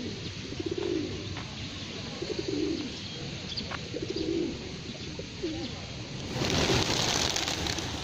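Feral pigeons cooing: about four low, rolling coos in the first six seconds. Near the end comes a loud rushing noise lasting about a second and a half.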